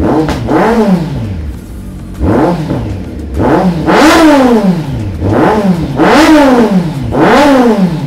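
Kawasaki Z900's 948cc inline-four revved in place, about seven quick throttle blips that each rise in pitch and fall back to idle. It breathes through a slip-on exhaust with the catalytic converter deleted.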